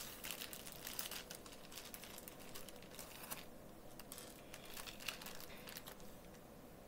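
Plastic zip-top bag of Perler beads crinkling faintly as hands open it and dig beads out, with scattered small crackles and a short lull about halfway.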